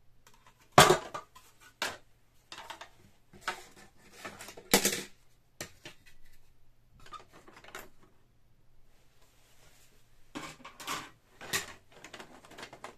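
Hard plastic housing panels of a Canon PIXMA MP-series inkjet printer knocking and clattering as they are handled and pulled off the printer. A string of sharp knocks, the loudest about a second in and another near five seconds, with a further cluster near the end.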